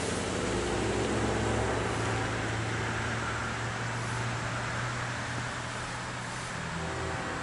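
Diesel locomotives at the head of an approaching CSX empty coal train, running with a steady low engine drone.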